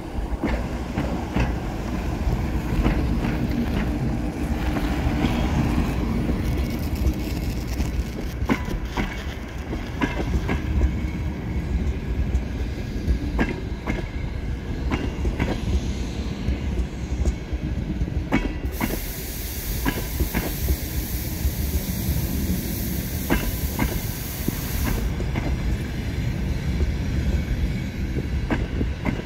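An EP2K electric locomotive and its train of passenger coaches rolling past as the train arrives: a steady low rumble, with the wheels clicking over the rail joints. A loud hiss starts suddenly about two-thirds of the way through and stops some six seconds later.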